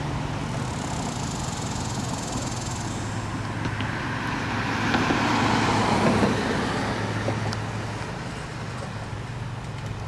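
Road traffic: a steady low engine hum throughout, with a vehicle passing that swells to its loudest about five to six seconds in and then fades.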